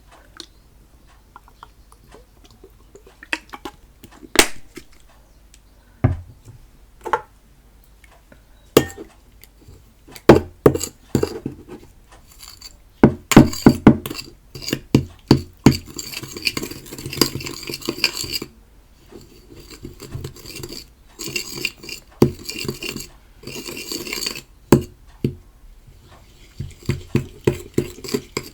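A utensil knocking and scraping against a bowl as slime ingredients are stirred together: scattered single knocks at first, then quick runs of clatter about halfway through and again a little later.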